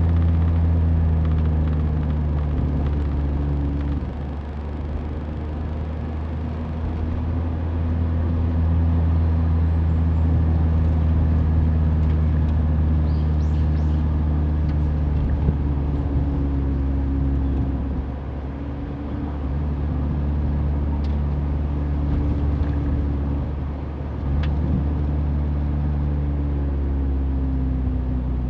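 Mazda Roadster's engine running steadily under road and tyre noise, heard from the on-board camera while cruising. The engine note drops and shifts briefly three times, as when easing off or changing gear.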